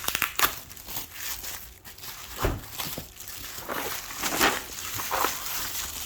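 Irregular rustling and crinkling of plastic packaging as a taped parcel is unwrapped, with short scrapes and handling knocks.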